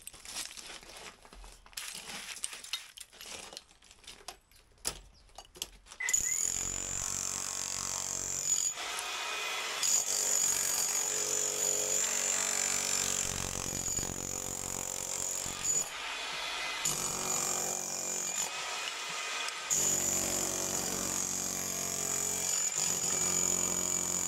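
Electric demolition hammer with a chisel bit breaking out brickwork and render. It starts after a few seconds of scattered knocks of loose brick, then runs in long stretches with short pauses about nine, sixteen and nineteen seconds in.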